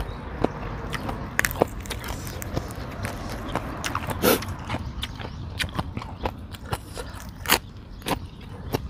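Close-miked chewing of a mouthful of crunchy green papaya salad (som tam), with wet mouth sounds and irregular crisp crunches. A few crunches are sharper, one about halfway through.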